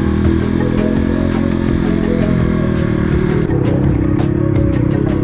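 Dirt bike engine running steadily under way, with many short clicks and knocks over it.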